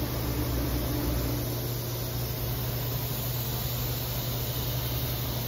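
Steady low hum and hiss while the spindle carriage of a Techno HDS CNC router jogs at rapid speed along its gantry, the short axis; the helical rack-and-pinion drive adds hardly any sound of its own.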